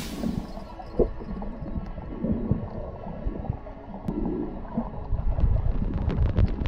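Shallow seawater heard underwater: muffled gurgling and rumbling sloshes. A run of short crackling clicks comes near the end.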